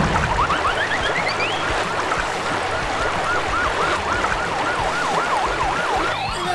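Fire engine siren in a fast yelp, wavering up and down about three to four times a second, over a steady hiss of a water cannon spraying.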